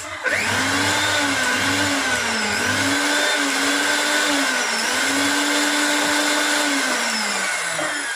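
Mixer grinder motor switched on and running at high speed, with a steady high whine. Its pitch dips several times, then it winds down near the end.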